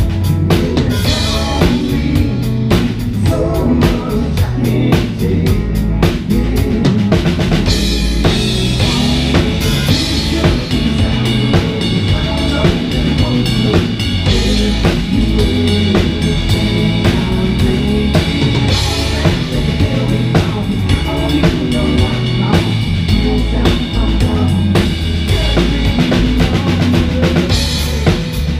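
A live band playing, heard from on stage, with the drum kit loud and up front: steady kick and snare hits under sustained guitar.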